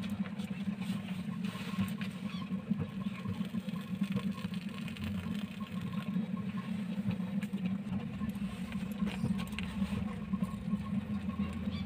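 Steady low machine hum, with a faint high steady tone above it and a few light clicks scattered through.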